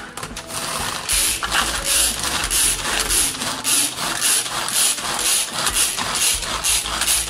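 Manual food chopper being worked to chop onion: a repeated ratcheting whir of the spinning blades, about two strokes a second.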